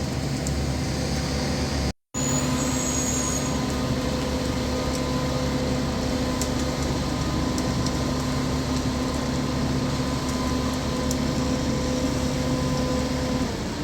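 Concrete mixer truck's diesel engine running at a steady pitch, a constant hum with no change in revs. The sound cuts out for a moment about two seconds in.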